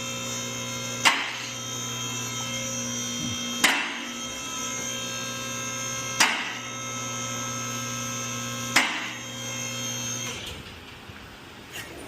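Electric-hydraulic vehicle lift motor running steadily as it raises the car, with a sharp clack from the lift's safety locks about every two and a half seconds, four times. The motor stops about ten seconds in.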